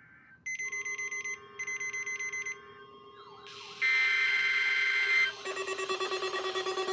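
Two screechy one-second bursts of EAS/SAME digital data tones from a NOAA Weather Radio broadcast, followed by several weather alert radios going off. A warbling tone comes in at about three seconds, then a loud steady alarm tone, which gives way near the end to fast pulsing alarm beeps.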